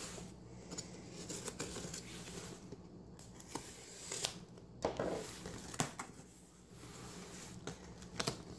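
Knife slitting the packing tape on a cardboard shipping box and the tape being torn and peeled back, in a series of short scratchy strokes with cardboard rustling.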